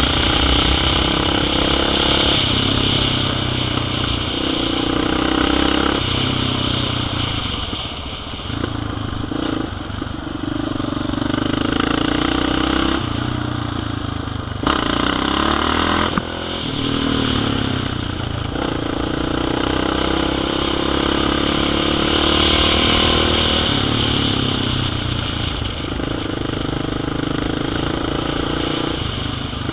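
Off-road bike engine running under way, its revs rising and falling with the throttle and gear changes, with a brief drop in the engine note a couple of times. Wind rushes over the helmet-mounted microphone.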